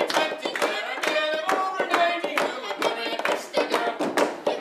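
Voices singing a lively song while an audience claps along in time, about two claps a second.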